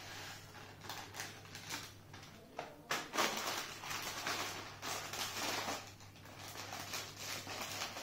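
Small plastic snack pouches crinkling and rustling as they are handled and snipped open with scissors, with short sharp snips and crackles at first and denser, louder crinkling from about three seconds in.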